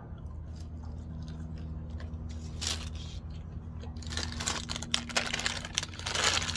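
Paper food packaging crinkling and rustling as it is handled, starting about two-thirds of the way in, over a steady low hum.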